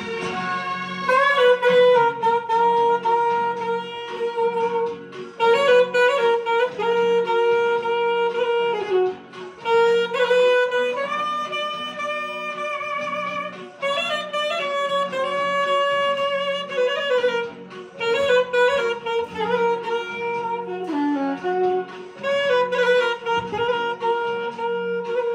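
An alto saxophone plays a slow solo melody: long held notes joined by slides, in phrases with short breath pauses every few seconds.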